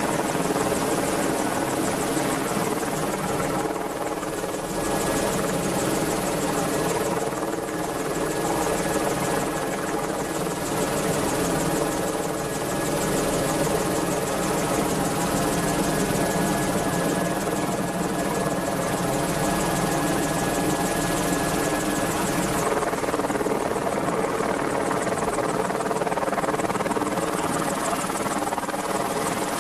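AgustaWestland Merlin helicopter, a three-engined machine, running steadily: a continuous mix of rotor noise and turbine whine.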